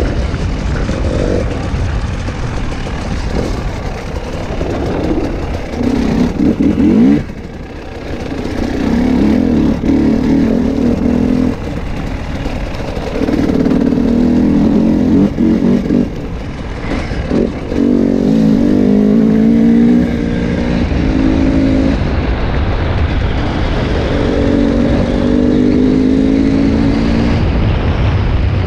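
KTM 300 XC-W two-stroke single-cylinder dirt bike engine under way, revving up and backing off again and again in bursts of a few seconds, the pitch climbing under throttle, with a brief drop in revs about seven seconds in.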